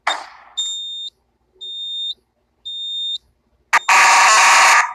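Fire alarm going off: three high-pitched electronic beeps about a second apart, then a loud, harsh alarm blast sets in near the end. A brief rush of noise comes just before the beeps.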